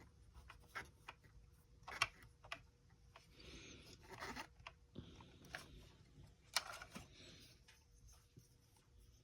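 Faint handling of a plastic toy: scattered light clicks and taps, with soft rustling and scraping in between, as parts of the Optimus Prime toy's trailer are fitted and moved.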